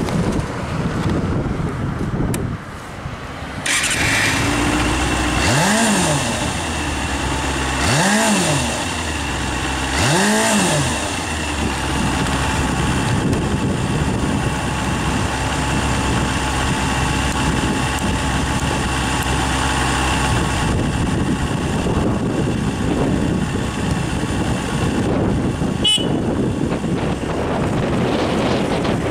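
Kawasaki Balius-II's 250 cc inline-four running through its stock exhaust. It is blipped three times, about two seconds apart, each rev rising and falling back, then it settles into a steady idle. There is a single sharp click near the end.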